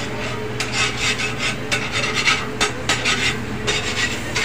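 Spatula scraping and stirring in a frying pan on a gas stove, in quick irregular strokes, over a steady low hum.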